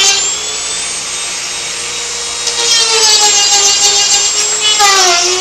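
Dremel rotary tool with a sanding bit whining at high speed as it sands out the entrance hole in a dried gourd. The whine wavers in pitch and sags briefly near the end as the bit bears down.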